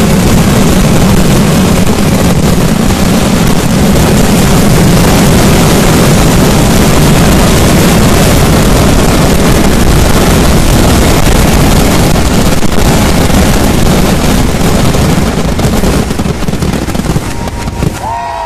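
Kerala temple-festival vedikettu finale: a continuous barrage of firecracker explosions, so dense that the blasts merge into one steady, very loud rumble. It eases off over the last couple of seconds.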